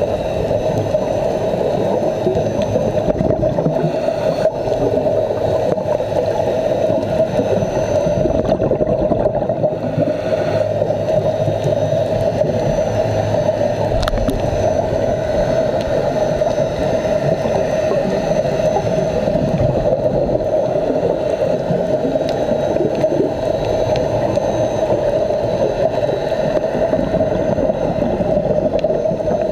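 Underwater sound picked up through a dive camera's waterproof housing: a steady muffled wash with a constant hum.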